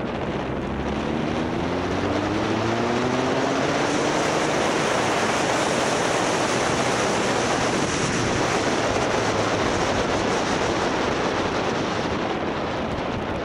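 Motorcycle engine accelerating, its pitch rising steadily for a few seconds, with loud wind rush on the microphone at riding speed.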